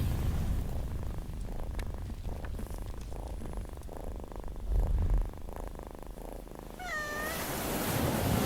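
Domestic cat purring close up, a low, fast-pulsing rumble that swells briefly a little past the middle. Near the end a short high call sounds and a hiss starts to grow louder.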